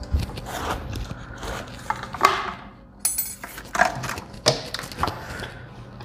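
Irregular knocks, clicks and rustles of hard plastic drainage parts being handled and shifted about, with no steady machine sound.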